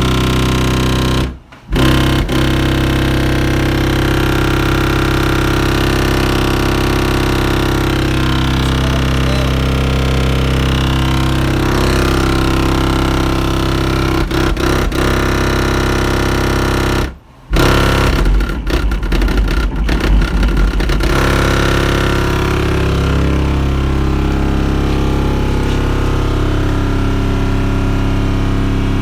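Untouchable Sounds King Series 12-inch subwoofer on 1500 watts playing a steady 32 Hz bass tone: a loud, constant drone with many buzzing overtones. It cuts out briefly twice, about a second and a half in and again around seventeen seconds, then flutters unevenly for a few seconds before settling back to the steady drone.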